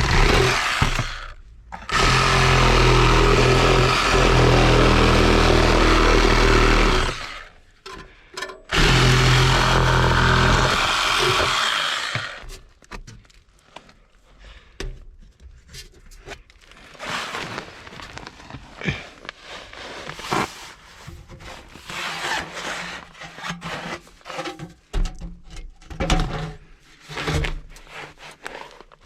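Reciprocating saw cutting in three long runs with short pauses between, then stopping about twelve seconds in, followed by scattered knocks and clatter of handling.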